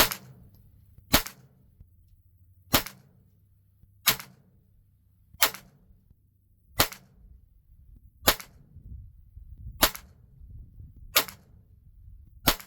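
.22 LR firearm firing ten single shots of CCI Green Tag standard-velocity competition ammunition at a slow, even pace of about one shot every second and a half. Each shot is a sharp crack with a short tail.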